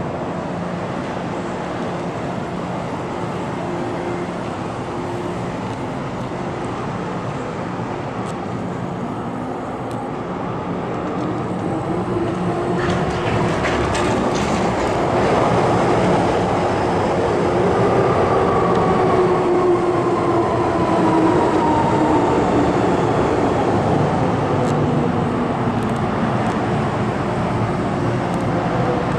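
MTR M-Train electric multiple unit running through an underground station without stopping. A steady rumble grows louder about twelve seconds in as the train comes alongside, with a short run of clicks, and over the last ten seconds a whine from the train falls in pitch.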